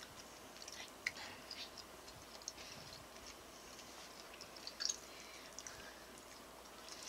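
A person chewing a mouthful of stir-fried pork with carrot and cucumber, soft mouth sounds with a few small clicks, the loudest about five seconds in.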